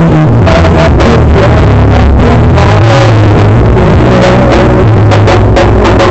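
Loud dance music from a DJ set over a festival sound system, with heavy bass and drum hits, overloading the camcorder's microphone.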